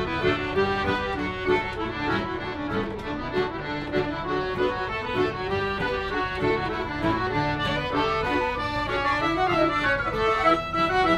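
Small folk band playing a lively pirate tune, with accordion leading over acoustic guitar and fiddle. A tin whistle joins the melody near the end.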